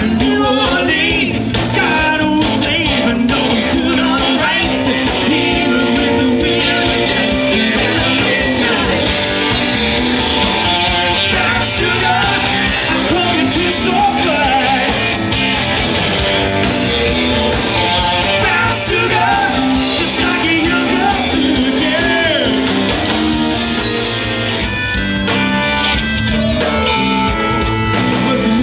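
A live band playing loud, steady rock music with electric guitars, drums and keyboards.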